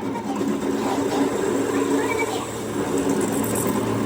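Machine running with a steady hum that comes up louder right at the start.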